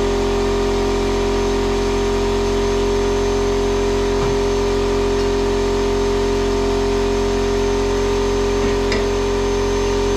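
Air compressor running: a steady, loud motor hum with a strong droning tone, unbroken throughout.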